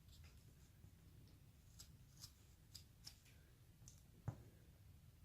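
Faint, crisp cuts of a hand carving knife slicing basswood: several short separate strokes, then a light knock about four seconds in.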